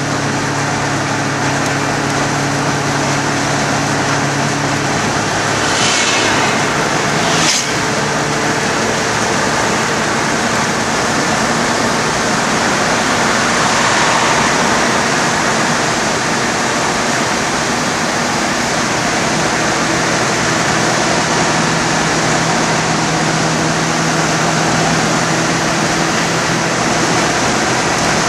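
Car driving at road speed, heard from inside the cabin: a steady roar of road and wind noise with a low engine hum underneath. The engine note changes about five seconds in and again about seven seconds in, where there is a brief sharp knock.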